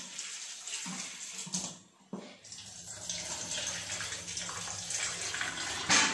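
Kitchen tap running into a stainless-steel sink while a bowl is rinsed under it. The flow stops briefly about two seconds in, then runs again, with a sharp knock of a dish near the end.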